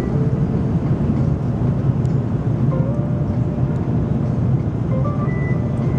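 A steady low engine rumble, with short tones that step in pitch now and then above it.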